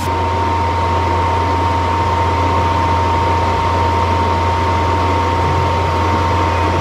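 A steady fan or motor hum with a thin high whine over an even hiss.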